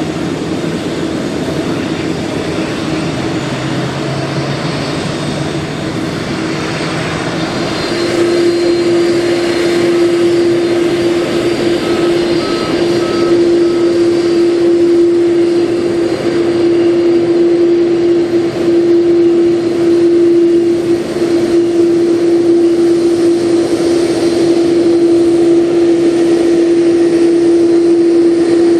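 Jet engines of an Airbus A330-300 (General Electric CF6-80E1 turbofans) running at taxi power as the airliner taxis by: a steady rushing noise with a strong steady whine, both growing louder about eight seconds in.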